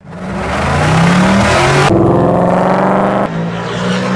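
Supercharged Ford Mustang GT 5.0 V8 running hard under acceleration, its pitch rising over the first two seconds. The sound changes abruptly at about two seconds and again near three and a half seconds.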